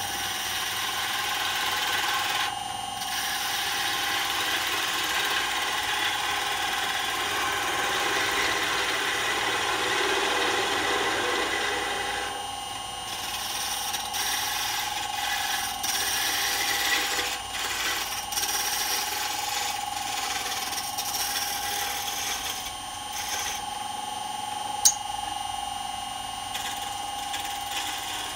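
Wood lathe running with a steady whine while a turning tool cuts the spinning wooden body of a small birdhouse ornament, a hissing scrape that breaks off briefly twice. A single sharp click near the end.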